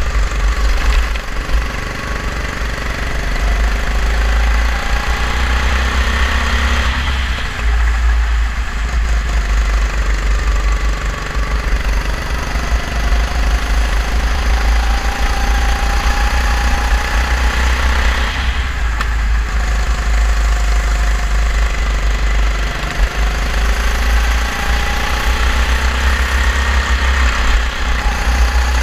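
Racing kart engine running hard, its note climbing in pitch as the kart accelerates and dropping away twice as it slows for corners, under a heavy low rumble on the onboard microphone.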